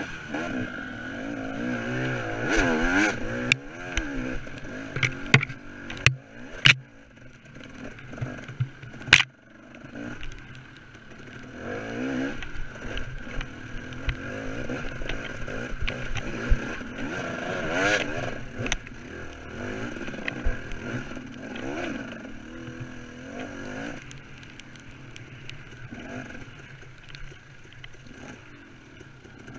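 KTM 300 two-stroke dirt bike engine revving up and down as it is ridden over a muddy, rutted trail. Several sharp knocks and clatter come in the first ten seconds.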